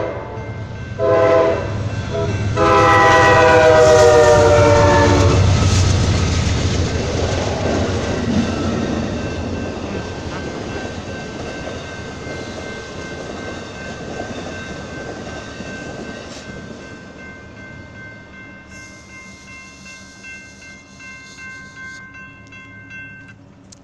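Amtrak Coast Starlight passenger train sounding its horn for a grade crossing in a few blasts, the last one long and ending about five seconds in. The train then rumbles past, wheels clicking, and fades away. A crossing warning bell rings steadily behind it and stops near the end.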